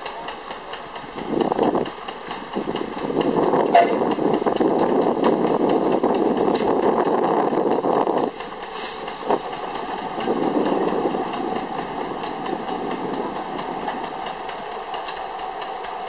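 Steam traction engine exhausting in quick, even chuffs as it belt-drives a sawmill. From about a second in to about eight seconds the saw cuts through a log, and a shorter, lighter cut follows around ten seconds in.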